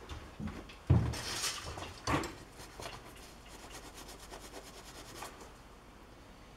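Hand work on metal at a lathe with the machine stopped: a heavy knock about a second in, a rasping scrape, a second knock, then a run of quick light clicks.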